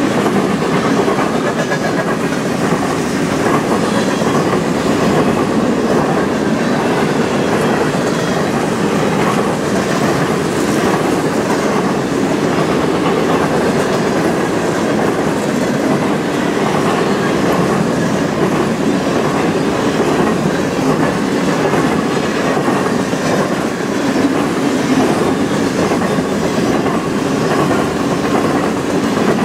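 Covered grain hopper cars of a freight train rolling past: a steady rumble of steel wheels on rail, with a regular clickety-clack of the wheel sets.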